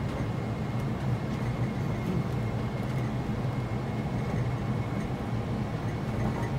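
Steady low cockpit rumble of an Airbus A320 full-flight simulator on final approach: simulated engine and airflow noise with a faint steady high tone above it.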